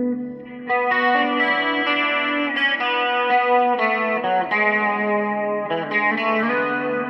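Electric guitar chords played through a Marshall amp with its built-in effects, the amp lifted off the floor on a block of wood. The chords ring out, with a new chord struck about a second in and more following.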